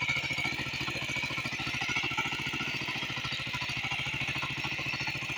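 Small tractor's engine running steadily, with a fast, even beat of firing strokes.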